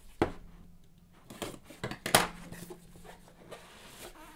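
Gloved hands opening and handling a cardboard trading-card box, with a few sharp knocks and clacks as the box and plastic top-loaded cards are set down on a table; the loudest knock comes about two seconds in. A faint steady hum runs underneath.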